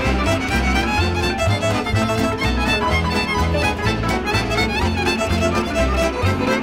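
Background music: an instrumental tune with a steady, pulsing beat and a busy melody.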